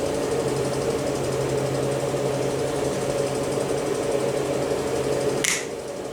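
A small motor running steadily with an even hum. A sharp click comes about five and a half seconds in, and the hum is a little quieter after it.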